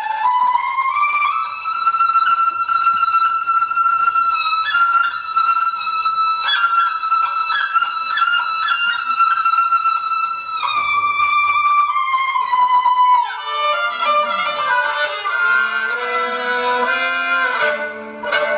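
Solo kamancheh, bowed: a long high note is held for about ten seconds with small pitch ornaments, then steps down. From about two-thirds through it moves into a faster passage of shorter, lower notes.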